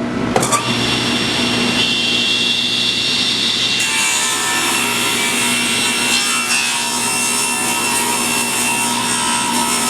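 Table saw switched on with a click, its motor and blade running with a steady whine; about four seconds in the sound turns brighter and harsher as the blade starts ripping a 1-inch strip along a spruce board.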